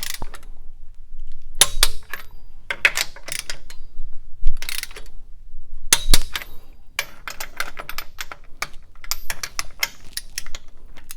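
Ratcheting torque wrench and socket working the manifold nuts on a Ford Model A engine: several short bursts of ratchet clicks and metal clinks.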